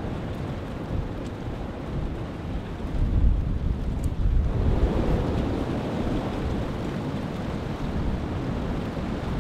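Strong wind gusting through bare trees and buffeting the microphone. A stronger gust swells about three seconds in, then eases off.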